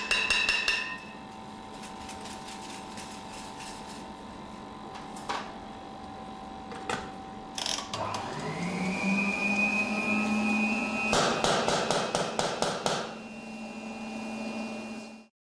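Quick runs of sharp metal knocking, a hand tool rapping on a metal powder container, at the start and again for about two seconds near the end, with a few single knocks between. Under it runs a steady machine hum. About halfway through, a motor starts and spins up, its pitch rising for about a second before holding steady.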